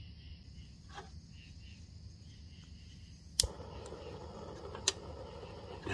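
Backpacking canister stove on an Olicamp gas canister being lit: a faint gas hiss, then a sharp pop about three and a half seconds in as the burner catches, after which it burns with a steady rushing sound. A second sharp click comes about a second and a half later.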